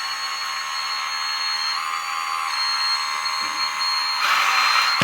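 Hydraulic pump of an LESU RC tracked skid-steer loader running with a steady high whine, its pitch stepping up briefly about two seconds in. Near the end a louder rushing hiss joins for under a second.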